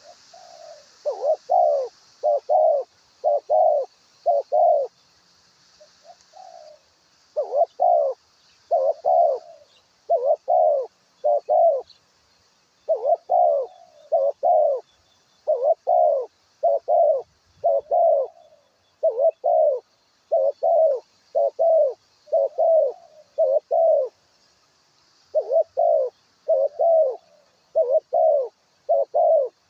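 Dove cooing: short, loud, arched coo notes repeated in runs of two to five, over and over, with brief pauses between runs.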